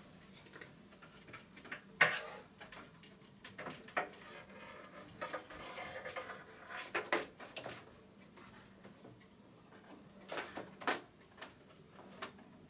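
Irregular clicks, knocks and rustling of HDMI cables, plugs and an angled adapter being handled, the sharpest knock about two seconds in.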